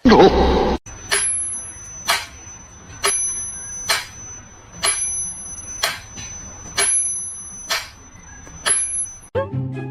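A small bell struck sharply about once a second, nine times, with a high ring that carries on between the strikes. A short loud burst of noise comes right at the start.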